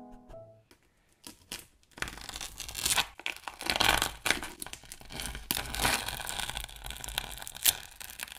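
Paint-covered masking tape being peeled off the edge of an acrylic canvas: a long ripping sound dense with small sharp snaps. It starts about two seconds in, runs for about six seconds, and ends with a few single clicks.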